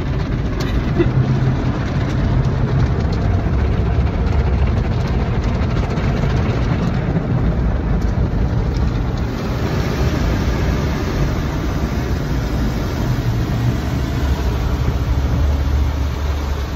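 Automatic car wash working over the car, heard from inside the cabin: a steady, loud wash of water spray and cloth brushes scrubbing the roof and windows.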